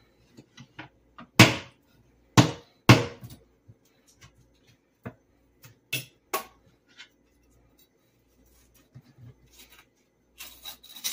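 Large knife chopping through stiff dried salted fish on a plastic cutting board: sharp separate knocks, three loud ones in the first three seconds, then a few weaker ones and a quick cluster near the end.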